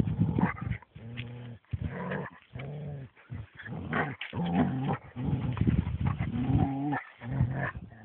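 Dogs growling, a string of low growls each about half a second to a second long with short breaks between: greyhounds growling to warn off a small terrier that keeps pestering them.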